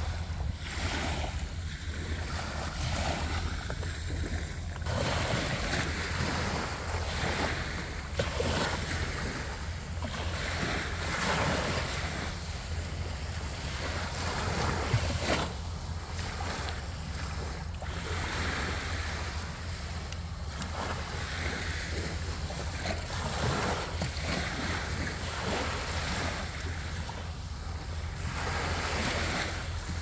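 Small waves washing onto a sandy shore, swelling and fading every second or two, over a steady low rumble of wind on the microphone.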